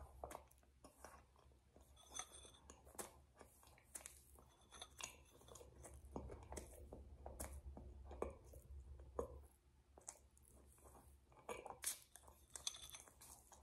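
Faint, close mouth sounds of someone chewing and smacking their lips, with irregular crunches, as they eat crushed ice from a glass.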